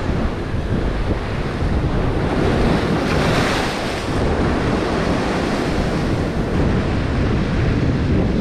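Strong wind buffeting the microphone over heavy, choppy surf, with a louder wash of breaking water about three seconds in.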